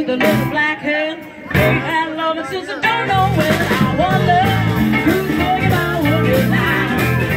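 Live band playing an upbeat zydeco-style dance tune, with a steady bass line and a voice singing over it. The music dips briefly a little over a second in, then carries on.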